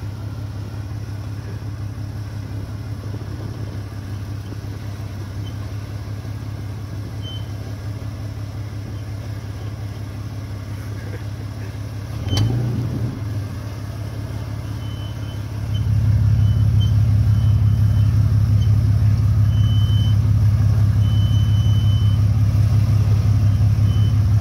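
Jeep Cherokee XJ engine running at crawling speed as the Jeep picks its way over rocks, with a short knock about halfway through. Past the middle it gets throttle and runs noticeably louder and steady to the end.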